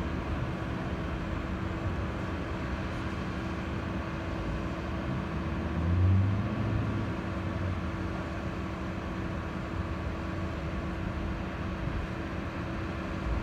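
Mobile crane diesel engines running steadily, with a brief louder low rumble about six seconds in.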